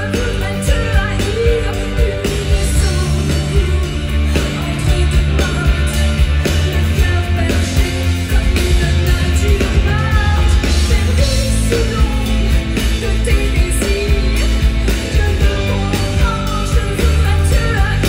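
Live pop-rock band playing through a festival PA: drums and electric bass keep a steady beat while a woman sings into a handheld microphone in short phrases.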